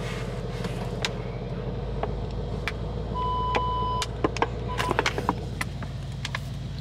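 Inside a car: the steady low hum of the engine and road. About three seconds in, an electronic warning chime sounds for just under a second, then briefly again a second later. Light clicks come and go.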